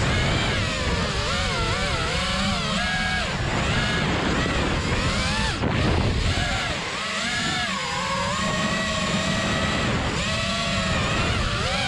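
Supermoto motorcycle engine revving, its pitch rising and falling again and again with the throttle, with wind rumbling on the microphone.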